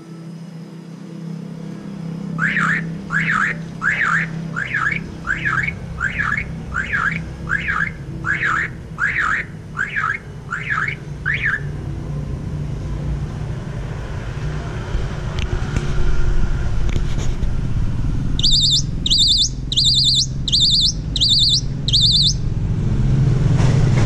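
Caged common myna calling, one note repeated about twice a second for some nine seconds, over a steady low hum of traffic. Later comes a run of about seven higher, evenly spaced notes, and a motor vehicle's engine grows louder near the end.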